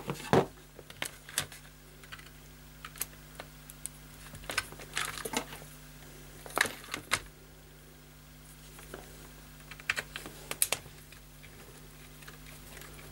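Scattered light clicks and taps at irregular intervals as the plastic case and circuit board of a 1980s Bush clock radio and a small screwdriver are handled on a silicone work mat, over a faint steady low hum.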